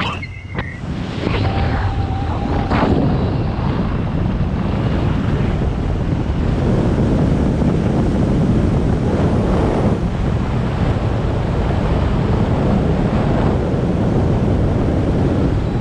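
Steady, loud wind rushing over a skydiver's camera microphone high above the drop zone. Near the start the rush dips briefly and a few short high tones sound.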